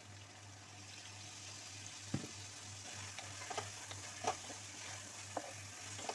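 Chicken pieces sizzling as they fry in a pan, a steady hiss, with a few sharp taps and clicks against the pan partway through.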